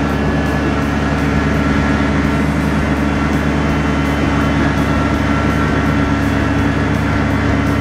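Kubota compact tractor's diesel engine running steadily under load while its mid-mount mower deck cuts grass, the blades engaged.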